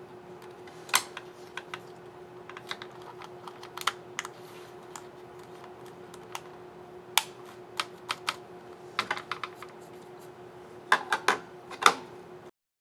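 Scissor-switch keys on a Dell Precision 5550 laptop keyboard being pressed, irregular clicks with quick flurries near the middle and end, over a steady low hum. The sound cuts off suddenly near the end.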